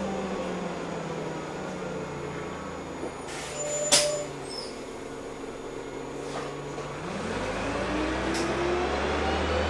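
Heuliez GX317 LPG city bus heard from inside the cabin: the engine note falls as the bus slows, with a short sharp hiss of air from the brakes about four seconds in. From about seven seconds the engine pulls harder and its pitch climbs as the bus picks up speed.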